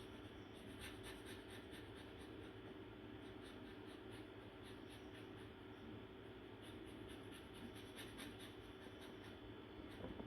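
Drawing tool scratching on a drawing surface in three runs of quick back-and-forth strokes, about five a second, over a faint steady hum.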